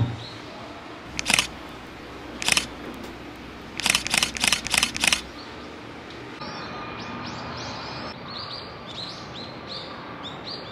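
Smartphone camera shutter clicks: one about a second in, another a second later, then a quick run of five in a row. After that, small birds chirping repeatedly over a steady outdoor background.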